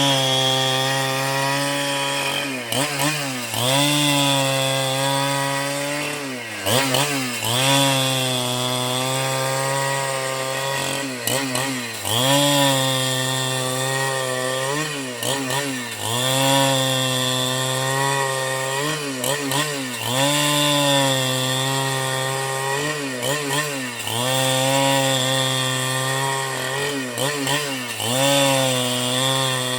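Chainsaw cutting into a block of wood, its engine pitch sagging under load and climbing back again and again every few seconds.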